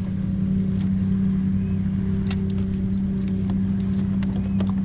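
A steady engine drone with a low, even hum, and a few sharp clicks.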